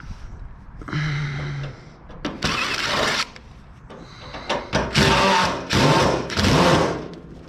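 Cordless power driver running in about five short bursts, backing screws out of a sheet-metal appliance being stripped for scrap.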